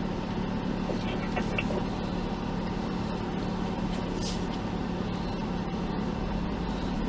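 Jeep engine idling steadily, an even low hum.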